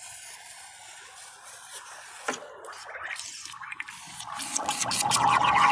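A lit firework hissing and crackling, with a faint hiss at first that grows much louder and denser about four and a half seconds in.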